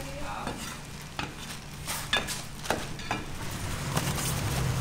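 Street-food cooking sounds: irregular clicks and knocks of utensils, about a dozen over a few seconds, over a light sizzle and a low hum.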